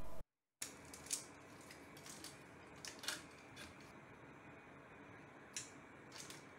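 Scattered light clicks and taps of 3D-printed plastic PanzerChain cable-chain links being handled and fitted onto the printer's gantry, the sharpest about a second in and about three seconds in.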